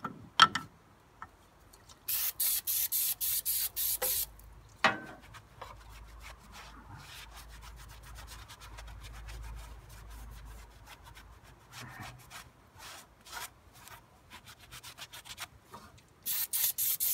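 Aerosol cleaner sprayed in two runs of quick short squirts, about two seconds in and again near the end, with a rag rubbing and scrubbing the crusted piston top and block deck of a small engine in between. A few sharp knocks, the loudest about half a second in.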